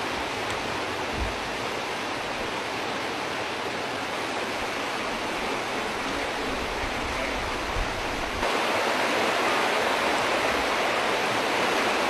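Steady rush of fast-flowing floodwater, stepping up abruptly louder a little after eight seconds in.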